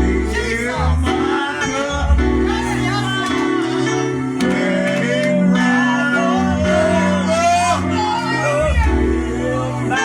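Music with singing: voices over held chords and a moving bass line, as in a church service.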